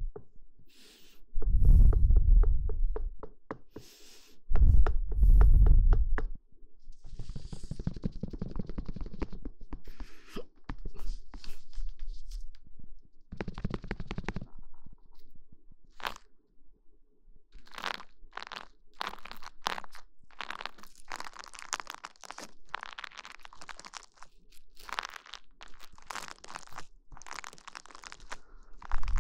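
Close-miked ASMR ear-massage sounds: rubbing and crunching right against the microphone. Two deep, muffled rumbles come about two and five seconds in, and a quick run of crisp crackles fills the second half.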